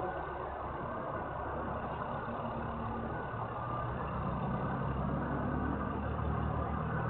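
Diesel semi-truck engine running with a low, steady rumble that grows a little louder about halfway through.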